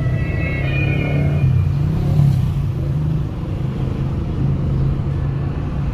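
Steady low rumble of a motor vehicle travelling in city traffic, with a brief high-pitched whine over it during the first second or so.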